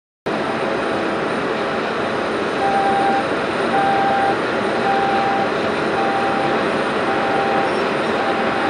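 Steady jet noise of a Boeing 737-400 on the apron during pushback, starting abruptly just after the start. A short beeping warning signal repeats about once a second from a few seconds in.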